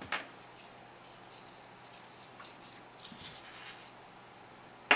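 Thin steel nozzle-cleaning needles rattling and clicking against each other and a small plastic tube as they are tipped out of it: a run of light, irregular clicks and rattles.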